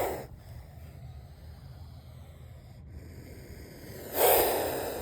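Snake hissing: a loud hiss trailing off at the start and another about four seconds in, each under a second long and fading away.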